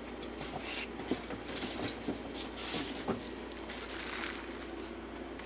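Rustling and crinkling of packaging being handled, with a few light knocks.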